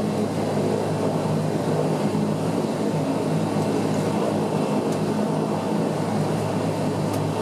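Bombardier Dash 8-100's Pratt & Whitney Canada PW120-series turboprop and propeller running at low taxi power, a steady drone with a humming tone, heard from inside the cabin beside the engine.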